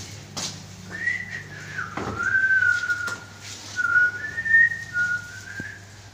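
A person whistling a short wandering tune, one thin note that slides and steps up and down in pitch, starting about a second in and stopping shortly before the end. A couple of soft knocks come early on.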